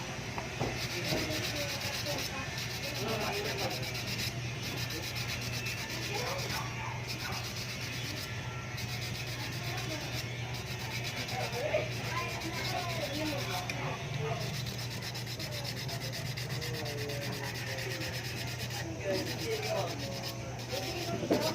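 Sanding a carbon-fiber honeycomb part: continuous scratchy abrasive rubbing over a steady low hum.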